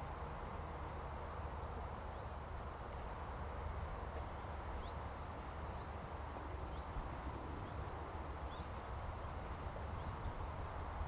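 Outdoor ambience: a steady low rumble and hiss, with faint, short, rising bird chirps every second or two.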